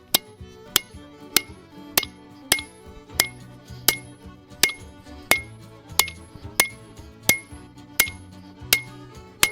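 Hand hammer striking hot steel on an anvil at a steady pace, about fifteen blows, each with a short bright metallic ring, while forging an axe head. Background music plays underneath.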